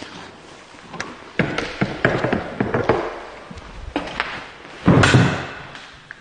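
A series of irregular thumps and knocks, the loudest a heavy thump about five seconds in.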